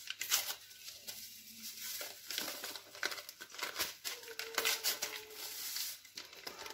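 Paper sachets of Alsa vanilla sugar crinkling and crackling as they are opened and shaken out over a glass mixing bowl: a run of short, irregular paper rustles.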